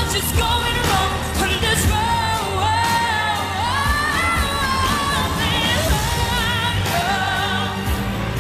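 A woman singing a pop ballad into a microphone over band accompaniment, holding long notes with vibrato.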